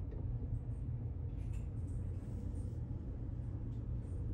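Steady low rumble of a large ferry under way, with a faint steady hum and a few faint ticks.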